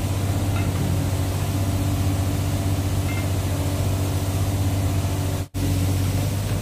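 An engine or motor running steadily with a deep, even hum. It drops out for an instant about five and a half seconds in, then carries on.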